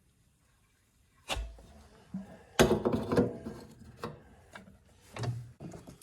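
A sharp thump, then a hard puff of breath blown into the fuel tank of a Caterpillar Sixty crawler tractor, followed by scattered knocks of handling. The blowing is meant to clear an airlock in the fuel line that keeps gas from reaching the carburetor.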